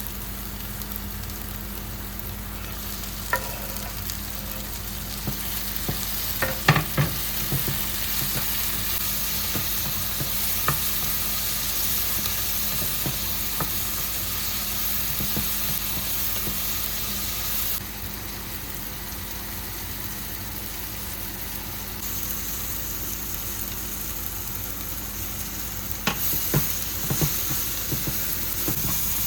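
Chicken pieces frying in a pan with a steady sizzle, stirred with a utensil that clinks and scrapes against the pan a few times, in clusters about a quarter of the way in and again near the end.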